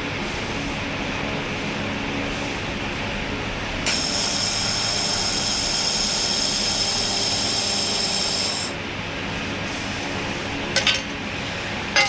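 Handheld laser welding machine running with a steady hum. About four seconds in, a sharp click starts a high-pitched whine that holds for about five seconds and then stops. A couple of short cracks follow near the end.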